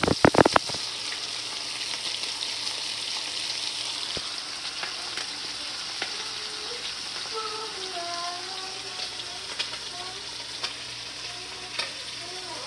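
Meat frying in hot oil, sizzling steadily with scattered pops. A few loud clatters come right at the start.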